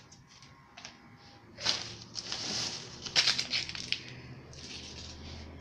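Irregular rustling and crunching noise in several bursts, starting about a second and a half in, with a fainter hiss near the end.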